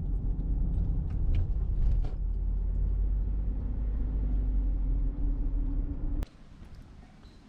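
Steady low rumble of a car on the road, the kind heard inside a moving car, with a few faint clicks; it cuts off suddenly about six seconds in.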